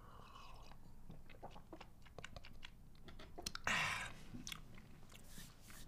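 Quiet mouth sounds of a person drinking milk: swallowing, then small wet clicks of the lips and tongue. A short, louder breathy rush comes about three and a half seconds in.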